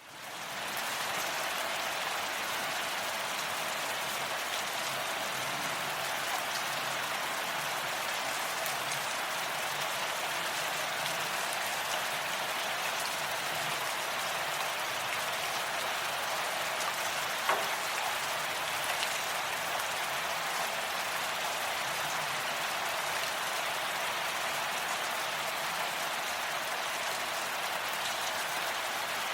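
Steady rain falling, an even hiss of drops that fades in over the first second. One louder drop ticks a little past halfway.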